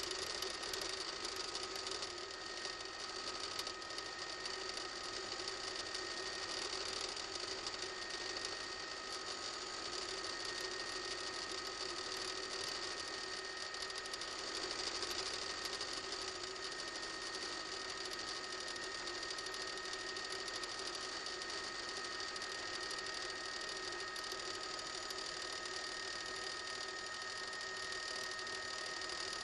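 Helicopter cabin noise heard through an open microphone: a steady whine made of several held tones over an even rushing hiss.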